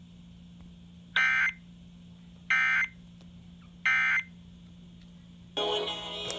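Three short bursts of the Emergency Alert System's warbling digital data tone, each about a third of a second long and about a second apart: the End of Message signal that closes an EAS alert broadcast on FM radio. A louder burst of other radio audio starts near the end, over a faint steady hum.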